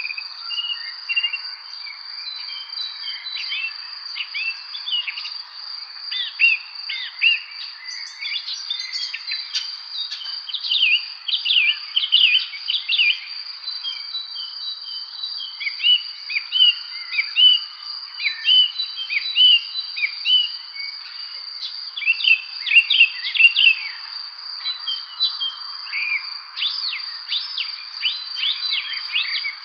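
Songbirds chirping and singing in quick runs of short sweeping notes, busiest in a few spells, over a steady high, unbroken trill of insects.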